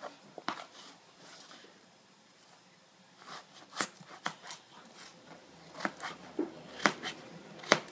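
Kitchen knife cutting potatoes into cubes on a chopping board: a string of short, sharp taps at an uneven pace.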